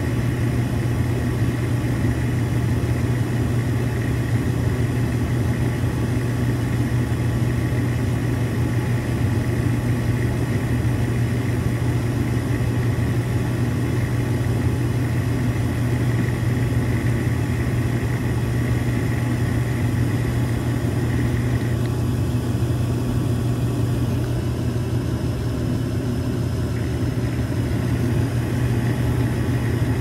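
York gas furnace running steadily with its burners firing: a constant low hum of motors and flame. A faint high whine drops out about two-thirds of the way through.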